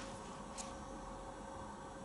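Quiet room tone with a faint steady hum, and one faint click about half a second in as the rifle is handled.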